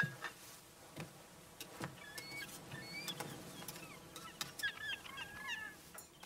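Birds chirping and twittering in short calls, busiest about halfway through and again near the end, with a few soft knocks.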